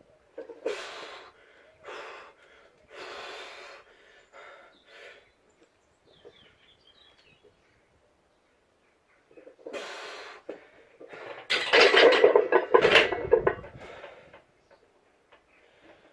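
A person's heavy, effortful breathing: a few sharp breaths, a pause, then louder strained breathing with a low thump in the middle of it.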